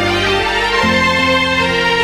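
Background music: slow held chords with a sustained bass that shifts about once a second.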